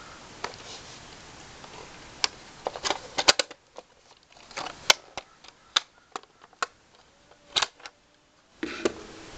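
A Polaroid 195 Land Camera being handled: a run of a dozen or more sharp, irregular clicks and clacks from its metal latches and front standard as the bellows and lens board are moved.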